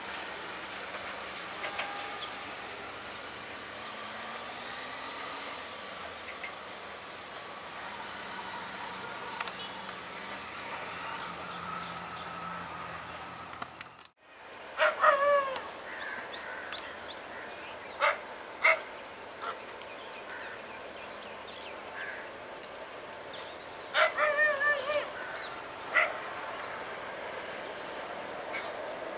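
Steady high-pitched drone of insects, with a faint low rumble of a receding diesel train in the first half. After a brief drop-out about halfway, short bird calls come in a few scattered bursts.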